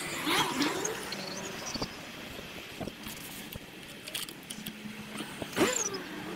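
Riding sound from a bicycle action camera played back six times faster: a steady bed of road and wind noise with scattered ticks. Two short, loud sweeping chirps come through, one about half a second in and one near the end.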